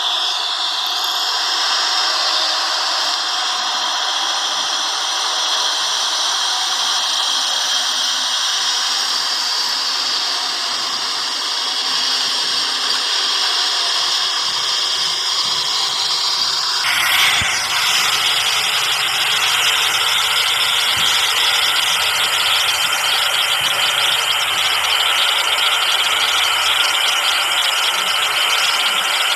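A steady, loud motor-like whirring noise with no deep rumble. It changes abruptly about seventeen seconds in to a brighter, harsher hiss.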